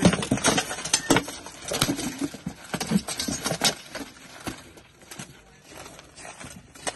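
Armoured fighters' swords striking wooden shields and steel armour: a rapid, irregular run of clacks and knocks for about four seconds, then fewer and quieter blows.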